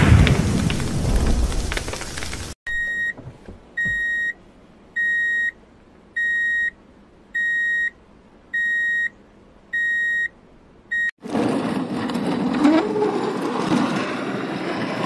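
An explosion sound effect dies away over the first two seconds. Then come eight identical short electronic beeps about 1.2 s apart, like a truck's reversing alarm. From about eleven seconds in there is a rough, noisy rush, as of soil sliding out of a tipper truck's bed.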